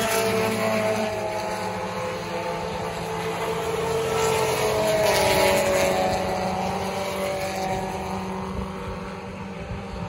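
Engines of several vintage Alfa Romeo race cars running past through a corner, their pitch sliding down as each goes by. The sound swells about five seconds in and fades near the end.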